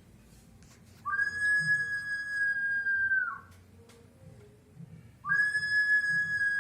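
Vicús ceramic whistling jar giving two long, steady, high whistles of a little over two seconds each, one about a second in and one near the end. Each slides up briefly as it starts and drops in pitch as it dies away.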